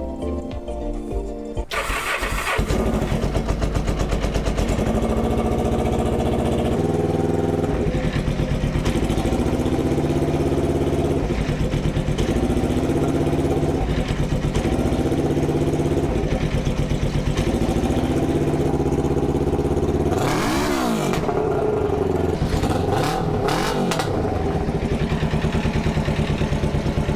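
1989 Kawasaki Ninja EX500's parallel-twin engine cranking and catching about two seconds in, then idling steadily, with short revs up and back down near the end.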